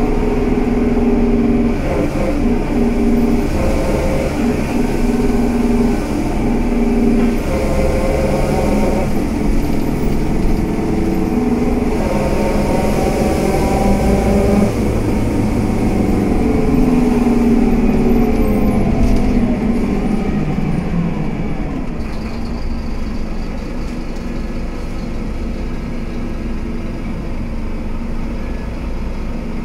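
Scania K320UA bus's 9-litre five-cylinder diesel engine pulling away through several gear changes, its pitch stepping as each gear comes in. About two-thirds of the way through it falls away as the bus slows, and it settles to a lower, slightly quieter steady run.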